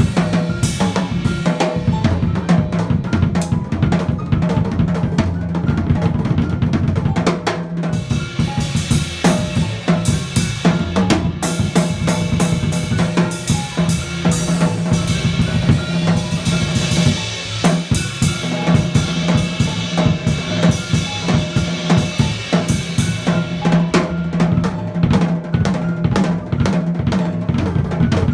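Live jazz combo of drum kit, upright double bass and piano, with the drum kit loudest: busy, dense strokes on snare, bass drum and cymbals over held bass and piano notes.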